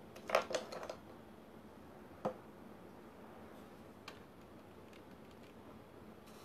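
Quiet handling noise on a tabletop: a short cluster of light clicks in the first second, one sharp tap about two seconds in and a faint tick near four seconds, as a paintbrush is picked up and worked against a watercolour tin and palette.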